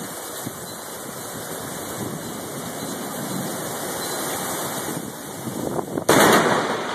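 Steady rain, then about six seconds in a sudden, very loud crack of thunder from a lightning strike close by.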